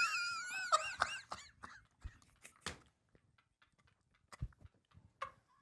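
People laughing hard: a high, wavering squeal of laughter over the first second and a half, then scattered short gasps and clicks as the laughter goes breathless.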